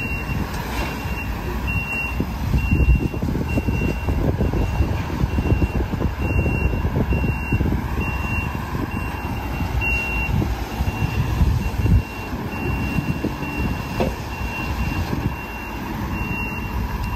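Truck backup alarm beeping steadily, about once a second, while a medium-duty truck backs down a car-hauler trailer's ramps, over a low truck-engine rumble.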